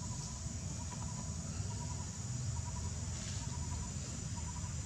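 Outdoor ambience: a steady low rumble and a constant high hiss, with faint short trains of chirps repeating about once a second.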